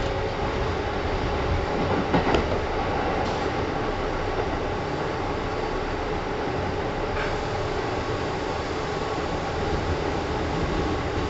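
Kintetsu 1010 series electric commuter train running between stations, heard from inside the car: a steady rumble of wheels and running gear, with a brief clatter about two seconds in and a fainter one about seven seconds in.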